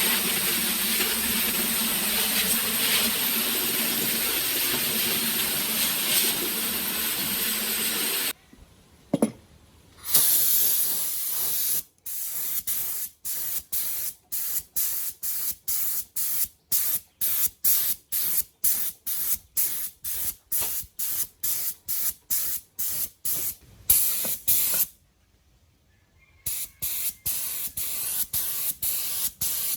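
Spray hissing: one long steady spray for about eight seconds, then, after a short pause, a run of short quick bursts about two a second, broken by another pause near the end.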